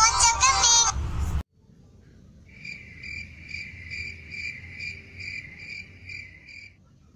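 Pitched-up singing over music cuts off abruptly about a second and a half in. After a short pause, crickets chirp in a steady high trill, pulsing about three times a second for about four seconds.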